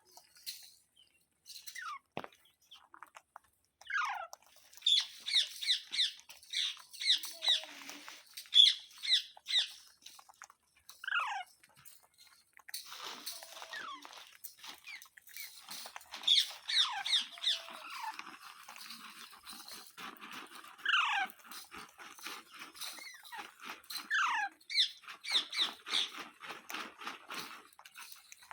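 Pet parrot calling: bouts of quick, sharp squawks in fast runs, mixed with longer falling screeches, with short pauses between bouts.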